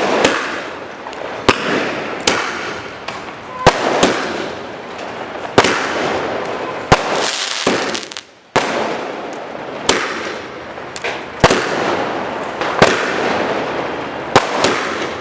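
Aerial multishot firework cake firing: sharp bangs about every one to two seconds, each trailed by a crackling hiss, with a short lull about halfway through.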